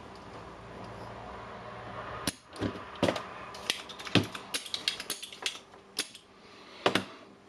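Irregular sharp clicks and light knocks of small tools and parts being handled during bench work on a battery charger's circuit board, starting about two seconds in.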